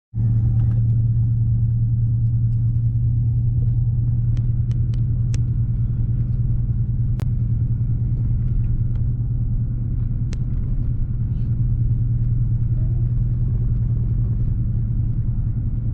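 Steady low rumble and engine drone of a car driving, heard from inside the cabin, with a few faint ticks.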